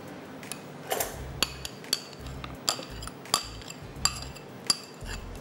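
Metal spoon scraping cream out of a small bowl into a glass mixing bowl: about seven sharp clinks of spoon against bowl, each with a short high ring.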